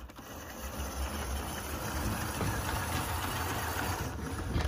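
Bachmann Gen 1 Norfolk & Western J-class 4-8-4 model steam locomotive running along the track under power: a steady whir from its small motor and gear drive, fitted with 3D-printed replacement gears. It grows louder over the first second or two.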